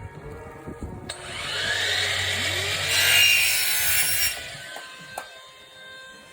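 A power saw cutting for about three seconds: it starts about a second in, grows louder and stops abruptly.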